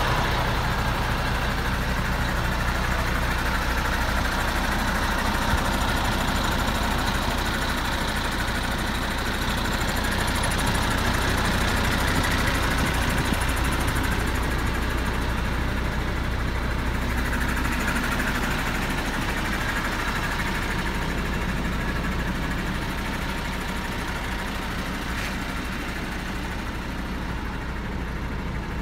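MAN TGX 33.540 tractor unit's straight-six diesel engine idling steadily, growing slightly fainter near the end.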